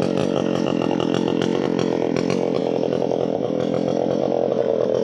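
Chainsaw running steadily at high speed, cutting wood.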